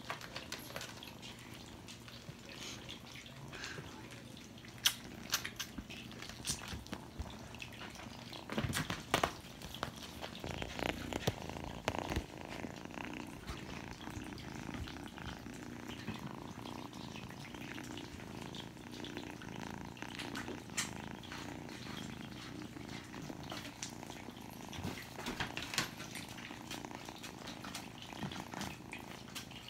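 Kitten purring steadily close to the microphone, with scattered clicks and rustles, most of them a third of the way through.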